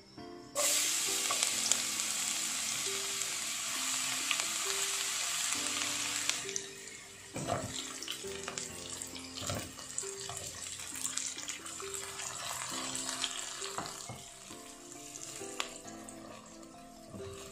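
Chopped garlic hitting hot oil in a stone-coated wok: a loud sizzle starts suddenly about half a second in and eases to a lower, steady frying sizzle after about six seconds. Scattered knocks and scrapes of stirring against the pan come through the frying, over light background music.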